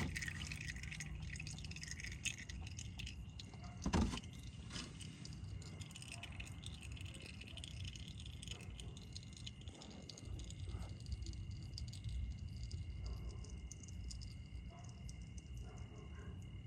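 Faint metallic clinks and rattles of hand tools worked on a car's oil filter, with one sharper knock about four seconds in.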